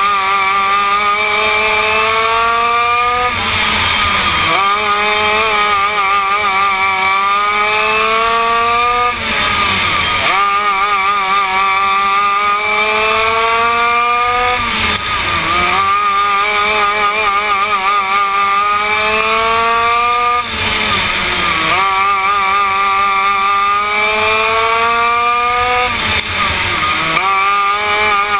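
Onboard sound of a Yamaha KT100 two-stroke kart engine racing: its pitch climbs for several seconds down each straight, then falls off sharply as the driver lifts for each turn, five times over.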